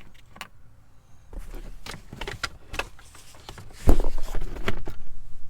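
Scattered clicks and rattles of a shift knob being unscrewed and the shifter trim being worked loose, with a loud knock about four seconds in followed by a cluster of louder clicks.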